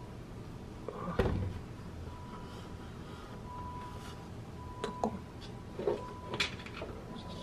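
Kitchen handling of the container for homemade yogurt being set up to ferment: one dull thump about a second in, then a few light clicks.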